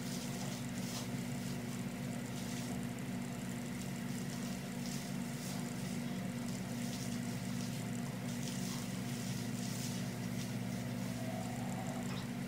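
Steady low hum of several fixed low tones, unchanging throughout, with faint brief rustles over it.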